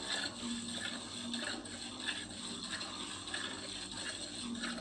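Hand milking: jets of milk squirt into a metal pail in a steady rhythm, about two squirts a second.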